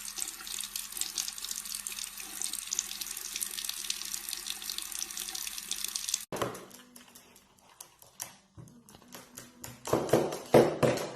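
Running water hissing steadily, then cutting off abruptly about six seconds in. After that come scattered clicks and knocks, with a few louder bursts near the end.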